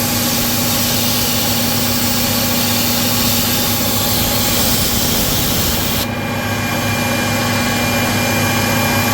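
CNC milling machine running steadily as a 2 mm ball end mill finish-machines steel, with several steady tones from the spindle and drives. A high hiss over it stops abruptly about two-thirds of the way through, while the machine keeps running.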